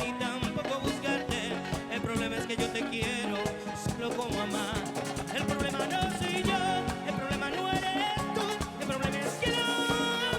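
Live bachata band playing, with a busy percussion beat under melodic lines.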